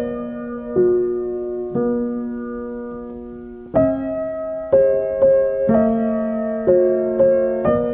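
Gentle solo piano music: chords struck about once a second, each ringing and fading before the next.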